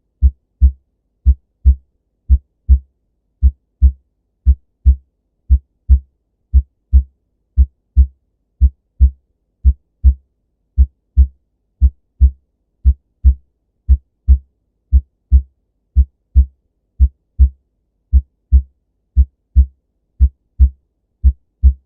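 Recorded human heart sounds: the first and second heart sounds (S1 and S2, 'lub-dub') as low, dull thumps in pairs, about one pair a second in a steady, regular rhythm.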